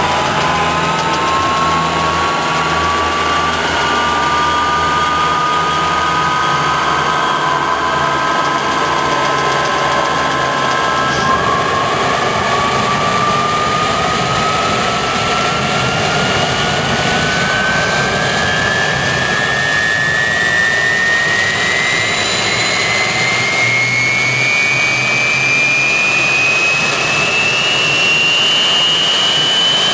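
Westinghouse J34 turbojet engine starting on a test stand: a loud rushing noise with a whine that climbs steadily in pitch as the engine spools up after light-off.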